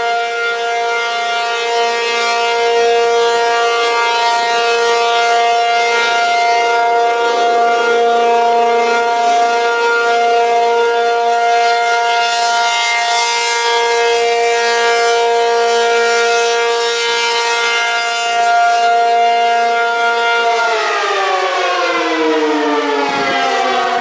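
ACA P-50 rotating tornado siren sounding a steady tone for its monthly test, then winding down about twenty seconds in, its pitch falling steadily.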